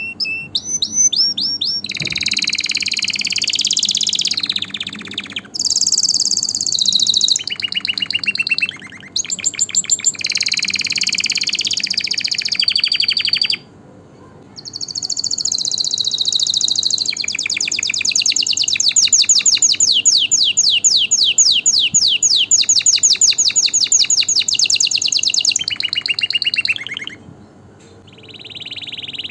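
Domestic canary singing: a run of high, rapid trilled phrases broken by short pauses, with a long fast trill lasting several seconds in the second half.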